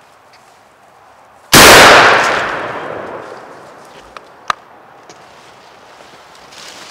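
A single shotgun blast about a second and a half in, with a long fading tail as it dies away. A lone sharp click follows about three seconds later.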